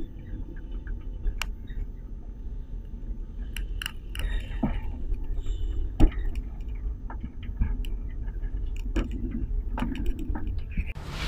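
Funicular car riding up its track, heard from inside the cabin: a steady low rumble with scattered clicks and rattles, and one sharp knock about six seconds in. A short burst of hiss comes near the end.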